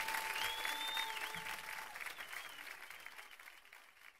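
Audience applause with a couple of long whistles, steadily fading out at the end of a live song recording.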